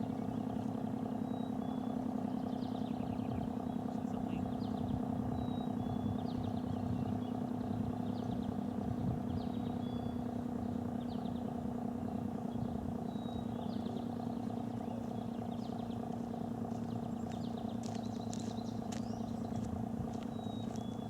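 ACA Screamer S-10 warning siren sounding a steady tone that drifts slowly lower in pitch, with small birds chirping repeatedly over it.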